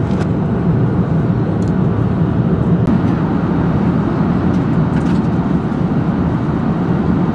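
Steady cabin noise of a jet airliner cruising at altitude: an even, dull rush of airflow and engines.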